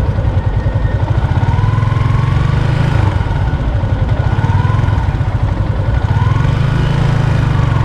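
Small motor scooter engine idling steadily, a low even pulse with no revving.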